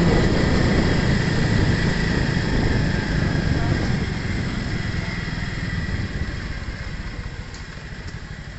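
Motorcycle engine running under way up a steep road, with wind rushing over the microphone. The engine gradually grows quieter.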